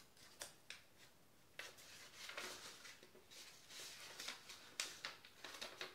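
Quiet rustling and crinkling of a sheet of graph paper as it is bent and creased by hand, with a few short crackles in the first couple of seconds and softer continuous rustling after.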